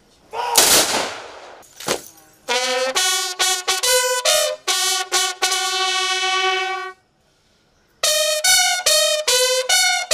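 A rifle volley fired as a military funeral salute, one loud crack echoing away, followed by a bugle call. The bugle plays slow separate notes, holds one long note for about two seconds, stops for a moment, then goes on.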